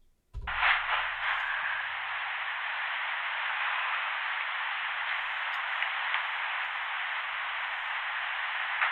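Electronic static hiss through a small speaker. It switches on with a click under half a second in and then holds steady and even.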